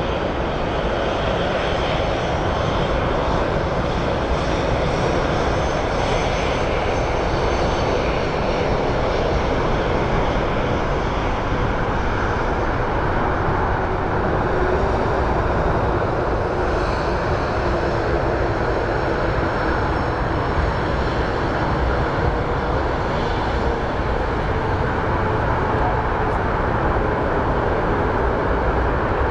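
Jet engine noise of an Airbus A320-family airliner on final approach and landing, a steady even sound with no sudden changes.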